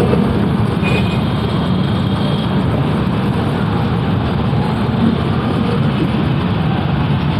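Steady low rumble of road traffic, with no single vehicle standing out.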